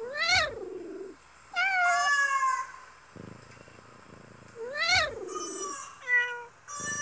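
Cat meowing, about four meows a second or two apart; the first and third rise and then fall in pitch.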